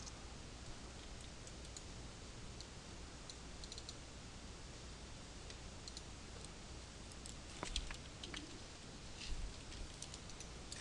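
Sparse, faint computer mouse clicks over steady microphone hiss, with a few louder clicks in the last few seconds.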